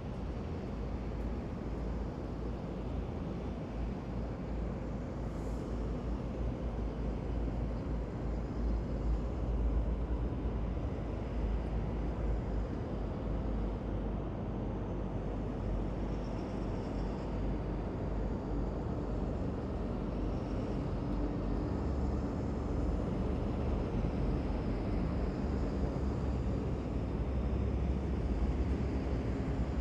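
Heavy military vehicles driving past in a column: a continuous low engine rumble that grows slightly louder toward the end, with a faint high whine joining about halfway through.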